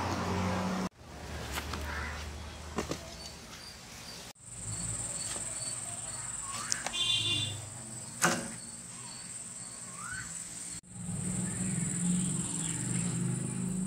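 Outdoor ambience across several short cuts: a steady high-pitched insect trill, typical of crickets, and a few short rising bird chirps. A couple of sharp knocks come around 3 s and 8 s, and a low rumbling noise rises near the end.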